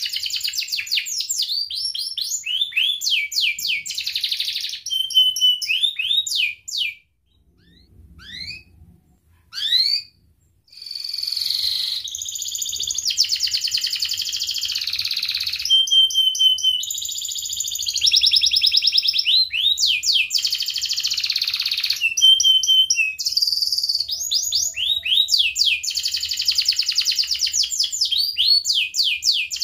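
Domestic canary singing a long, fast song of rapid repeated trills and rolling notes, with a few held whistled notes. About a quarter of the way in the song breaks off for a few seconds, leaving only a couple of single rising notes, then resumes in full.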